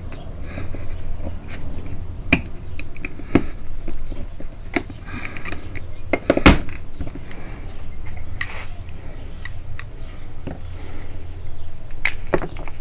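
Small metal pick scraping and clicking against the crimped metal cap of a car trunk lock cylinder as the cap is worked loose. There is one louder knock about six and a half seconds in, and a steady low hum underneath.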